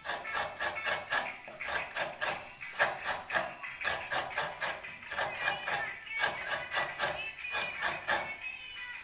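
Half a coconut being scraped by hand with a metal scraper, a fast, even run of scraping strokes, about five a second, with a couple of brief pauses.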